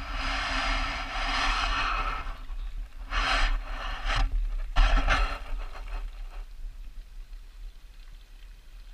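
A hooked bass splashing and thrashing at the water's surface beside the bank: a rush of splashing at first, then several short sharp splashes a few seconds in, dying away.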